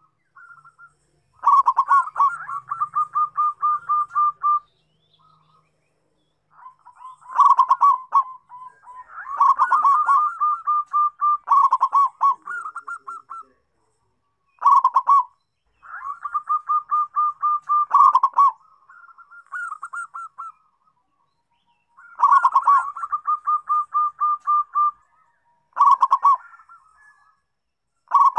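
Zebra dove (perkutut) cooing: phrase after phrase every couple of seconds, each a quick run of short, evenly spaced staccato coos opening with a louder note.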